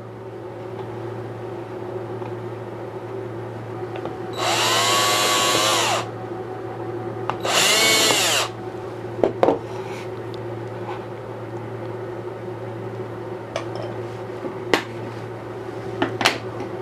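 Cordless drill running in two short bursts, each spinning up to speed and holding, while drilling small pilot holes for a latch in a bamboo box. A few sharp clicks and knocks follow later, over a steady low hum.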